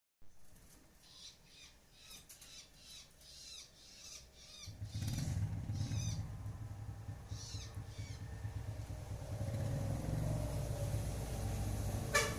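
A caged songbird calling in short, repeated high chirps, about two a second, through the first half. From about five seconds in, a steady low engine rumble of a passing vehicle comes up and carries on under a few last chirps, with one sharp click near the end.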